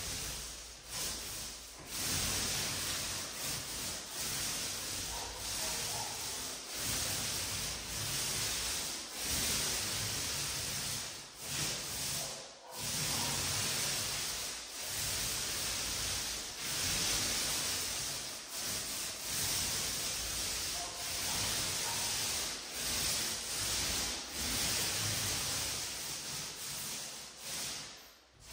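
Paint roller being worked back and forth, a wet hissing rasp in repeated strokes of a second or two each, with brief breaks between them.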